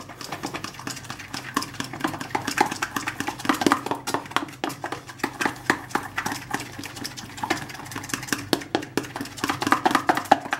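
A fork beating an egg, flour and honey batter in a plastic tub: rapid, uneven clicking and tapping of the fork against the plastic.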